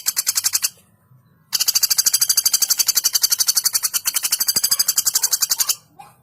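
Female pelatuk bawang woodpecker calling in a fast, tight rattle of rapid high notes, about ten a second. A short burst stops before a second in, and after a brief pause a long rattle of about four seconds follows.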